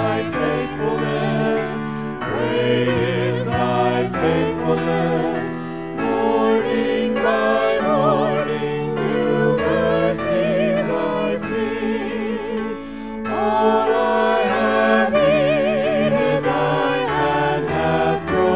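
Church worship music: several voices singing long held notes with vibrato over a steady instrumental accompaniment with a bass line.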